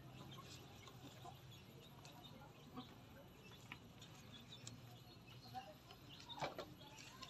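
Near silence with a few faint, scattered crackles and clicks, the sharpest about six and a half seconds in.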